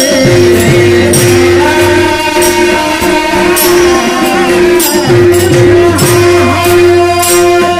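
Devotional kirtan music. A steady held drone note lies under a gliding melodic line, and metallic percussion strikes at regular intervals.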